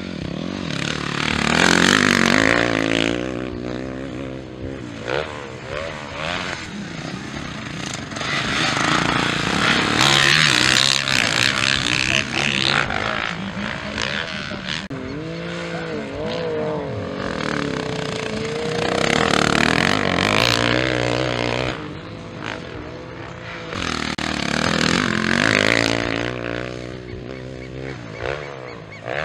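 Motocross dirt bikes racing, their engines revving up and down with gliding pitch. The sound swells louder several times as bikes pass close.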